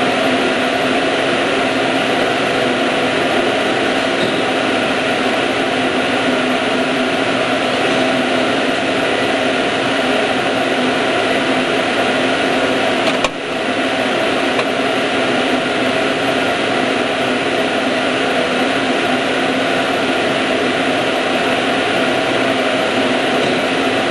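Steady whirring hum of an operant chamber's ventilation fan running continuously, with one brief dip and click about thirteen seconds in.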